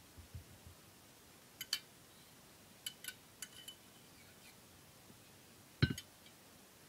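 Rice being knocked out of a saucepan onto a china plate: scattered light metallic clinks and taps against the pan and plate, with one heavier knock about six seconds in.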